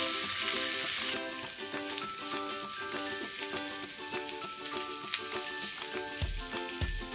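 Tilapia fillets sizzling in a hot frying pan, loud for about the first second, then settling to a quieter hiss with scattered crackles. Background music plays underneath, with a regular bass beat coming in near the end.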